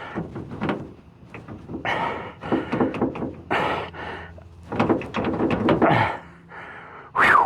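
Metal knocks and clatter of hand tools on a steering box's mounting bolts as they are run in and tightened, in irregular bursts with a sharp loud knock near the end.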